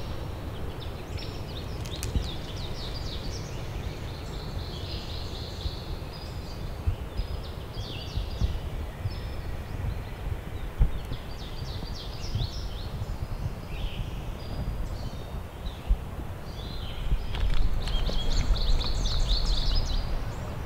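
Several songbirds singing and chirping in woodland, in quick repeated notes that grow busier near the end, over a low uneven rumble of wind on the microphone.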